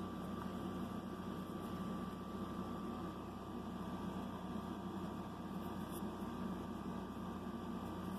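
Steady low hum with hiss and a faint constant high tone, unchanging throughout, like mains or machine hum in a room. No distinct handling sounds stand out.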